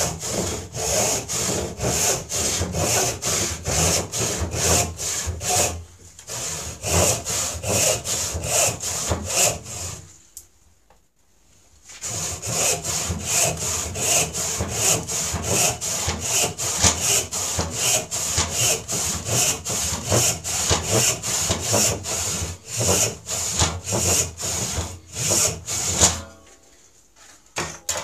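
A coarse hand rip saw cutting lengthwise down a wooden board held upright in a vise, in steady back-and-forth strokes at about two a second. The sawing breaks off briefly about six seconds in, pauses for about two seconds around the ten-second mark, then resumes and stops shortly before the end.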